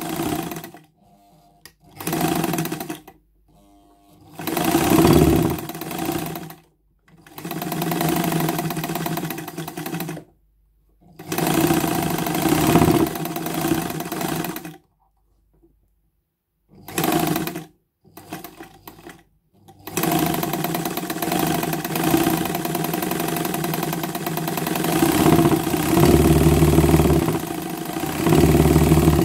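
Vintage Jones D-66DL heavy-duty straight-stitch sewing machine stitching through fabric in stop-start bursts of one to four seconds with short pauses between. It then runs without stopping for about nine seconds over the last third.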